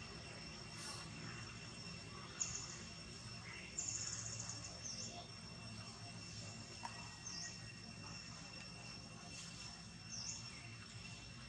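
Outdoor forest ambience: a steady high-pitched insect drone, with a few short bird chirps scattered through it.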